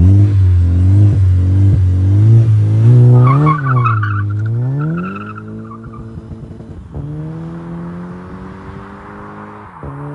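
Car engine revving under hard acceleration: its pitch climbs, dips sharply about three and a half seconds in, then climbs again and holds, with a brief squeal around the dip. It gets quieter after about five seconds.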